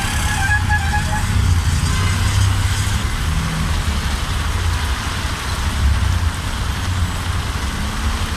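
Heavy rain with road traffic: a steady rush over a low rumble.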